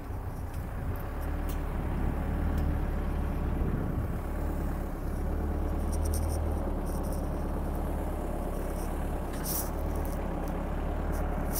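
A 2018 Mahindra ROXOR's 2.5-litre four-cylinder turbo diesel running steadily at low revs as the machine creeps forward under light load. A few light clicks come near the end.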